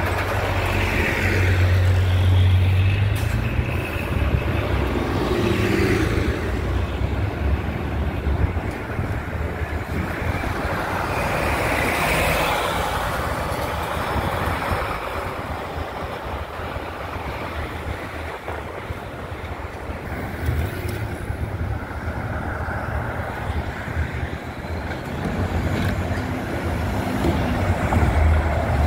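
City buses passing close by on a busy street, their diesel engines running with a low drone that is strongest in the first few seconds and again near the end, over a steady bed of traffic noise. About twelve seconds in, a broad swell of engine and tyre noise passes.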